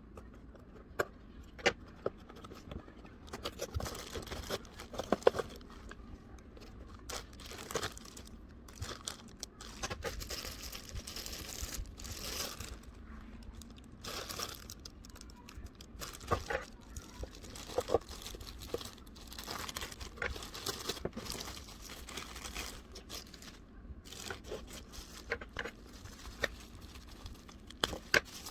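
Figure packaging being opened by hand: plastic and cardboard crinkling and tearing, with many scattered sharp clicks and taps.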